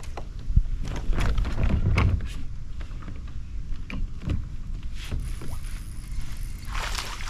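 Low wind rumble on the camera microphone with scattered knocks, clicks and rustles of fishing gear being handled in a kayak.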